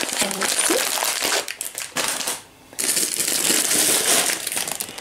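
Plastic food packaging crinkling and rustling as it is handled, starting with a clear bag of dry broth mix (pearl barley and dried peas). It breaks off briefly about two and a half seconds in, then goes on.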